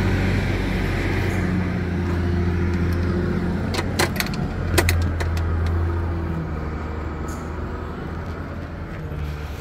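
Heavy truck cab door being opened, with a few sharp clicks and knocks of the latch and door about four to five seconds in, over a steady low engine hum.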